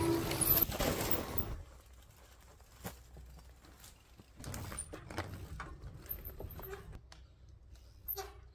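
Mountain bike on a wooden plank skinny: a rush of rolling noise in the first second and a half, then scattered knocks of the knobby tyres and bike on the boards.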